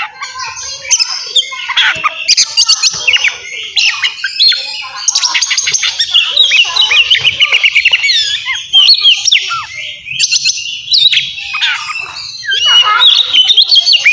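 Oriental magpie-robin (kacer) singing loudly and almost without pause, a fast run of gliding whistles, trills and harsh scratchy notes, in the agitated, fighting-mood song that keepers play to rouse other kacer.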